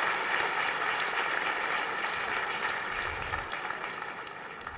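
Large audience applauding, the applause slowly dying down toward the end.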